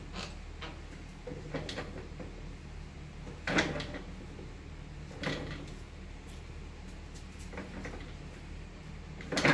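Doberman sniffing and nosing along a row of PVC scent tubes on a wooden board: a few short, separate scuffs and knocks, the loudest about three and a half seconds in.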